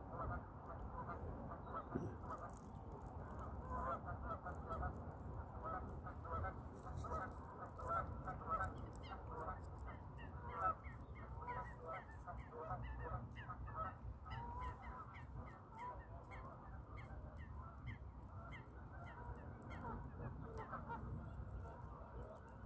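Geese honking: a long run of short, rapidly repeated calls, densest in the middle and thinning near the end, over a low wind rumble.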